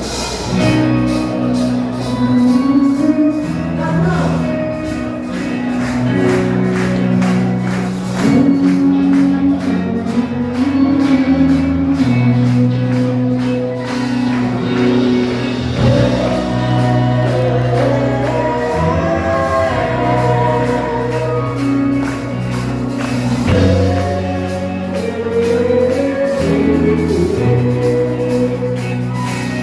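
Gospel worship music with singing, a steady beat of tambourine or shaken percussion, and a bass line changing notes every second or two.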